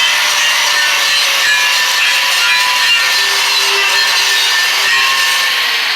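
Angle grinder running steadily against a 7018 stick weld bead, cleaning off the slag; a loud, rough, steady grinding that eases off near the end as the tool winds down.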